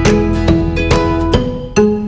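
Background music: a plucked-string tune, guitar-like, with a new note about every half second.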